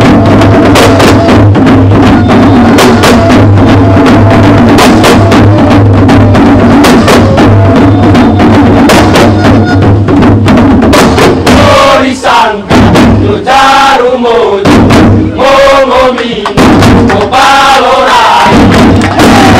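An ensemble of tifa, Moluccan wooden hand drums, playing a fast, dense rhythm. After about twelve seconds the drumming breaks into short gaps, and group voices chant between the drum strokes.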